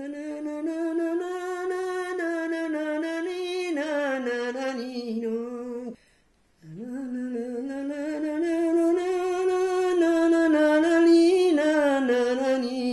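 A woman singing a traditional Tuscan lullaby (ninna nanna) unaccompanied, in two long, slow, swaying phrases with a short breath pause about six seconds in.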